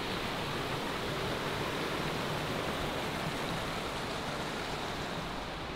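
Small rocky mountain stream running over stones beneath a footbridge: a steady rushing of water that eases slightly toward the end.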